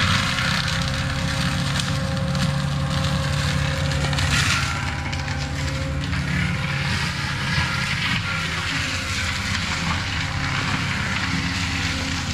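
Diesel engine of a compact land-clearing machine running steadily under work, with a brief louder rush of noise about four and a half seconds in.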